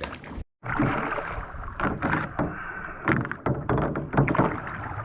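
Kayak paddle strokes dipping and splashing in the water, at an irregular pace.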